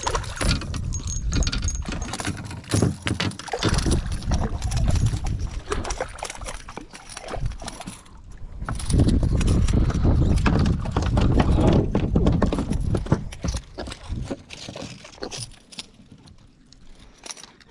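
Wind buffeting the microphone in two long gusts, over clicking and rattling from an ultralight spinning reel being cranked to bring in a small jack.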